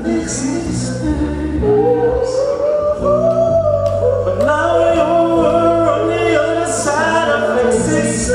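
Men singing into microphones over a backing track with a stepping bass line, holding and bending long sung notes.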